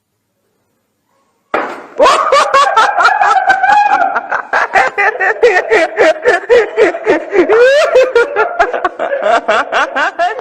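Loud laughter in rapid pulses, about four a second, starting abruptly after a second and a half of silence.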